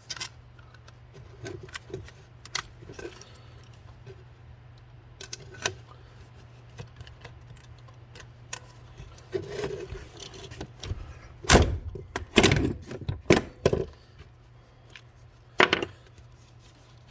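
Light metallic clicks and rattles of rivets and a hand pop rivet gun being handled and set in place. About two-thirds of the way through come several loud sharp clacks close together, then one more a couple of seconds later, as the gun is squeezed to set a rivet.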